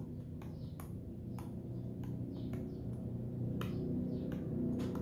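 Stylus pen tip tapping and scratching on a laptop's glass touchscreen while handwriting: a string of sharp, irregular clicks, a couple each second. Low steady tones run underneath and grow louder toward the end.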